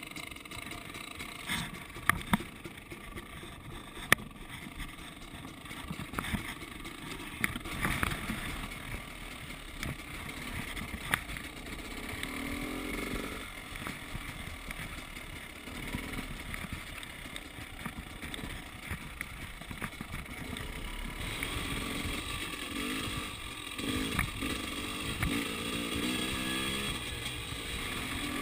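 KTM 300 XC-W two-stroke single-cylinder dirt bike engine running under way, its pitch rising and falling as it is revved, with a few sharp knocks in the first third. It gets louder and revs harder from about two-thirds of the way through.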